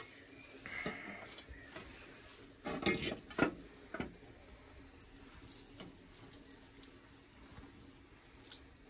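Handling noise from the chrome headlight nacelle of a Harley-Davidson Road King being fitted onto the fork tubes. A brief rustle comes about a second in, then a quick cluster of sharp metal knocks and clicks around three seconds in and another about four seconds in, followed by faint light ticks.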